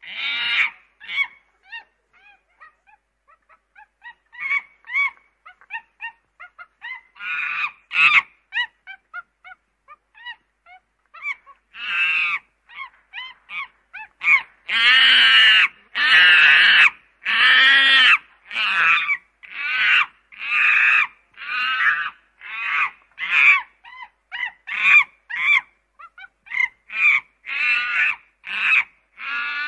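Domestic ducks calling again and again: thin high calls at first, then a dense run of loud honking quacks from about halfway on.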